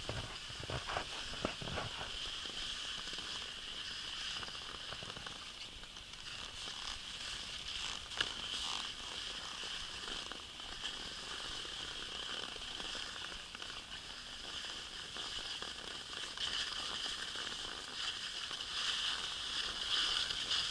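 Skis sliding slowly over packed snow behind a walking husky: a steady hiss with scattered crackles and crunches, a few sharper crunches in the first two seconds.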